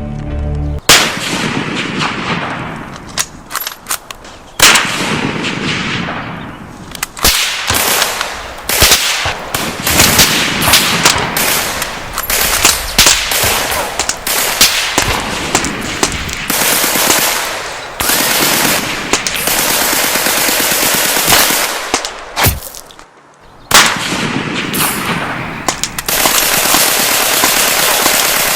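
Dense battle gunfire: rapid machine-gun bursts mixed with single shots, and a few very loud bangs that ring out. The firing dies away briefly about three quarters of the way through, then picks up again heavier.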